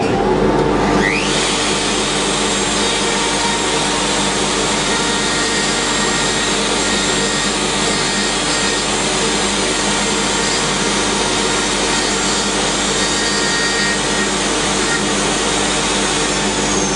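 Electric wood router and shop dust extractor running together, with a rising whine about a second in as the router comes up to speed, then a steady, loud whine and rush of air as the router cuts a shallow recess in a wooden board.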